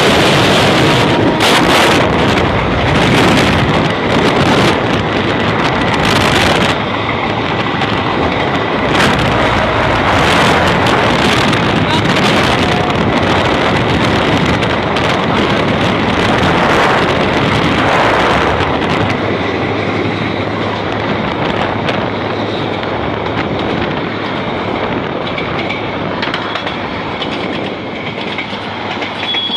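Heavy wind buffeting the microphone of a phone carried on a motorbike riding at speed, mixed with the running noise of a passenger train alongside. The buffeting is gustiest in the first several seconds, then settles into a steadier rush.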